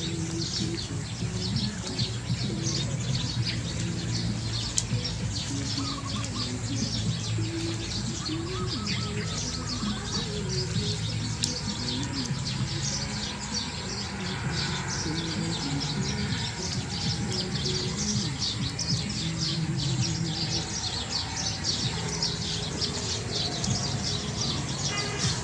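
Birds chirping in a dense, continuous chorus of quick, high calls.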